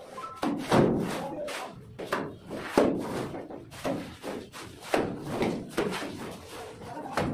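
Wet cement-sand mortar thrown by hand scoops against a brick wall for plastering: about a dozen sharp wet slaps at irregular intervals, with a scoop scraping up mortar from the floor between throws.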